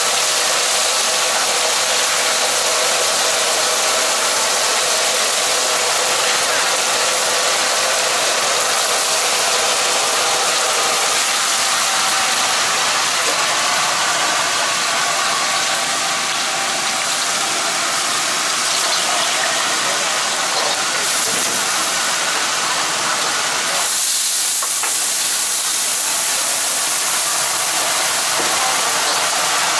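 Hot oil sizzling steadily in a wok as battered seafood deep-fries, over the continuous rush of a gas wok burner. The hiss is loud and even throughout.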